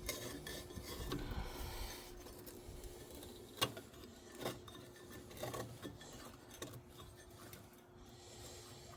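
Light rubbing and scraping with a few scattered clicks of hard parts being handled, as a joystick cable is worked through a tight bend in a skid steer's control mount. A faint steady hum sits underneath.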